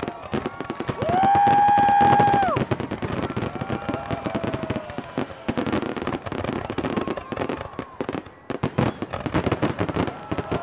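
Aerial fireworks shells bursting in rapid succession, with dense bangs and crackling throughout. Spectators yell over them, including one long, loud whoop about a second in.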